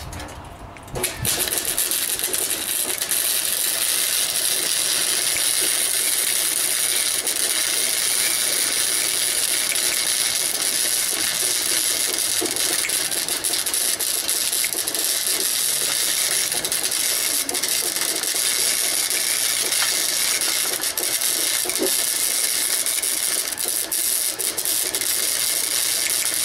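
Arc welding steel angle iron: the arc strikes about a second in and runs as one long continuous bead, a steady crackling hiss.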